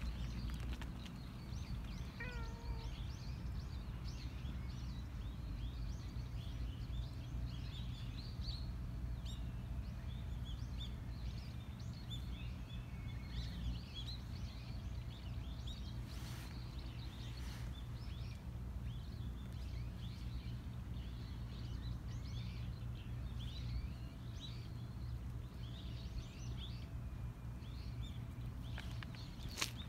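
Small birds chirping and twittering throughout over a steady low outdoor rumble, with a brief pitched call about two seconds in.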